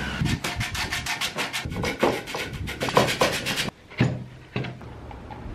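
Sanding of a carbon-fibre hydrofoil part as a fast run of rhythmic rubbing strokes, about eight a second. The strokes stop suddenly after about three and a half seconds. Two short knocks follow as the assembled carbon-fibre foil is handled.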